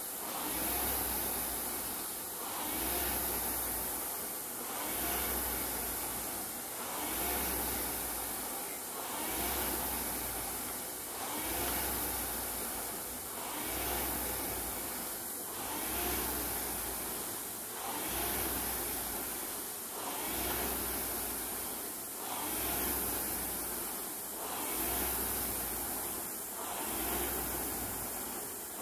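Air-resistance indoor rowing machine's flywheel fan whooshing in surges with each stroke, about one every two seconds at a steady rate near 29 strokes a minute, under a hard 2 km effort.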